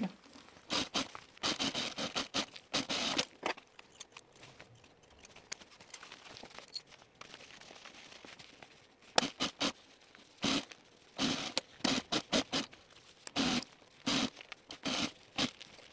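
Laminated cotton fabric rustling and crinkling as it is handled and smoothed across a sewing machine bed, in short irregular bursts with a quieter stretch in the middle.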